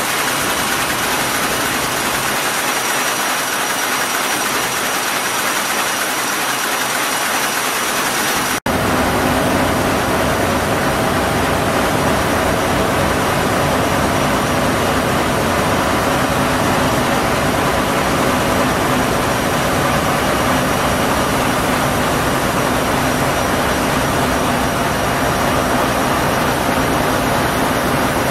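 Ship's original 1964 main diesel engine running, a loud, steady engine-room din. It breaks off for an instant about a third of the way in and resumes with a heavier low hum.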